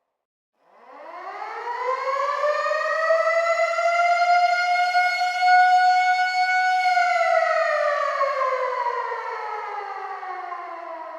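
Air raid siren starting from silence about a second in, winding up in a rising glide, holding a steady tone for a few seconds, then winding down in a long falling glide.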